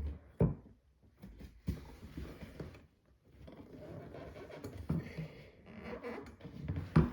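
Handling noise from plastic animatronic parts being fitted together: scattered clicks and knocks with rustling and scraping in between. The loudest knock comes near the end.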